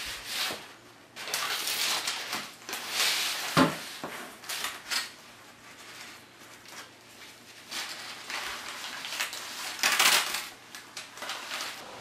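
Aluminium foil tape being handled, crinkled and rubbed flat with a cloth: irregular rustling and scraping, with one knock about three and a half seconds in.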